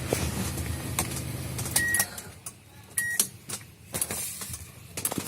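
A car engine idling, its hum stopping about two seconds in, then two short high beeps about a second apart, with scattered clicks and rattles.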